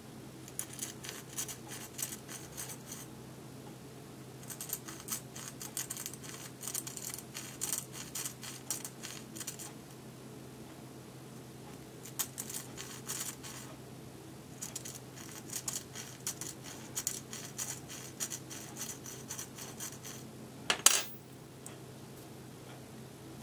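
A 4 mm steel drill bit twisted by hand against the drilled holes of a plastic LEGO pneumatic switch body, scraping in several runs of rapid scratching as it shaves off drilling residue; the scratching shows rough edges still there. Near the end, one sharp click.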